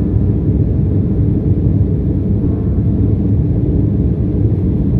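Steady low rumble of an airliner's jet engines and rushing air heard inside the passenger cabin during the climb, with a faint brief whine about halfway through.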